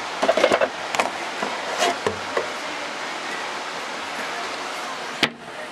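Steady hiss from the recording with a few short knocks and rustles in the first two and a half seconds, then a sharp click a little after five seconds, after which the hiss drops.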